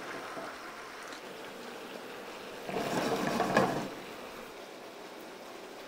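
Chicken pieces with pickled vegetables and olives simmering and sizzling in a sauté pan, stirred with wooden spoons. The noise grows louder for about a second near the middle.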